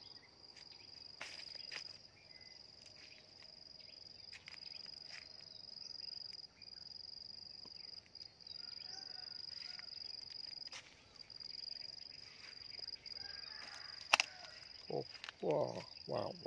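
An insect singing one steady high-pitched note with a few brief gaps, over rustling and twig snaps from footsteps through dry grass and brush. A sharp snap about fourteen seconds in, then a few short vocal sounds from a person near the end.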